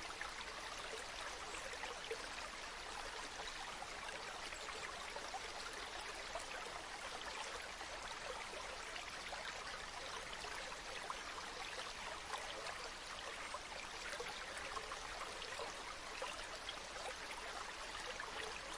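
Mountain stream running steadily: an even rush of water with many small bubbling splashes.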